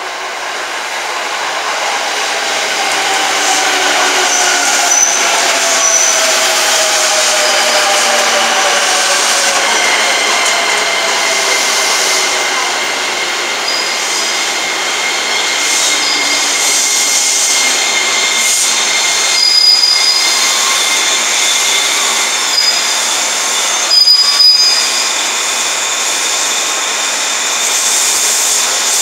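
Musashino Line 205-series electric commuter train pulling into the platform, its motor whine falling in pitch as it slows, over steady running noise of wheels on rail. Later a steady high tone holds, with a few brief high squeaks.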